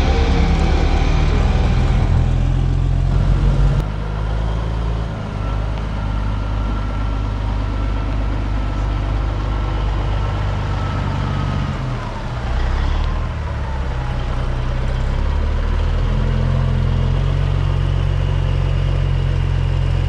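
Peterbilt 359's B-model Caterpillar diesel running under way, a deep, steady engine note that drops and shifts pitch a few times, as on gear changes.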